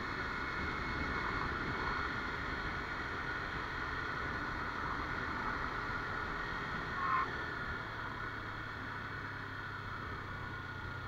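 Kawasaki Ninja 300 parallel-twin engine running on the move, with steady wind rush, easing off as the bike slows in traffic. A short high chirp sounds about seven seconds in.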